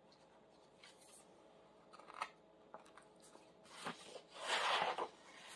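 A few faint taps from handling a picture book, then a page turned with a brief papery rustle near the end.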